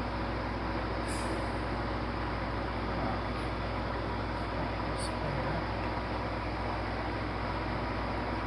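A steady background hum, with a few faint light clicks about one, three and five seconds in.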